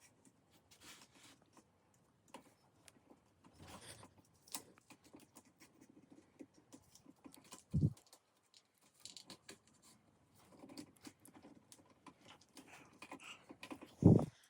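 Scattered small clicks and scratchy rustles of an adhesive-backed wire cover being handled and fitted over the wiring, with two dull thumps, about eight seconds in and again near the end.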